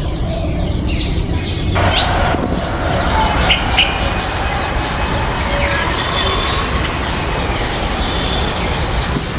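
Birds chirping and calling in short notes, over a loud steady noise that comes up about two seconds in and holds.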